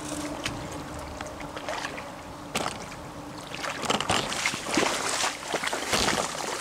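Stream water rushing and lapping around a wading angler's legs, then, from about halfway, repeated louder splashing as a hooked brown trout thrashes at the surface while being brought to a landing net.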